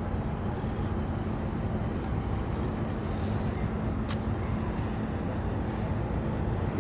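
Steady low mechanical rumble with a constant low hum, and a couple of faint ticks.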